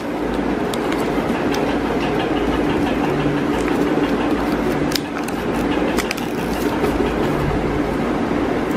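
Steady rumbling background noise, with faint crackles and clicks of paper being creased and handled.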